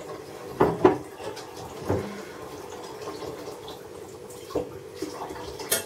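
A few scattered light knocks and clinks, five in all, over a steady low hum of household background noise.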